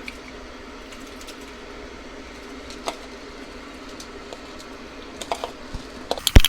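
A pot of broth simmering with a faint steady hum and occasional light clicks; near the end a quick run of sharp clicks and knocks, the loudest part, as rice is tipped into the pot and stirred with a spoon.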